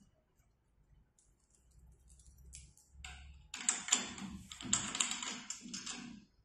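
Small metal assembly hardware being handled: a quick run of clicks and rattles starting about halfway through and lasting nearly three seconds.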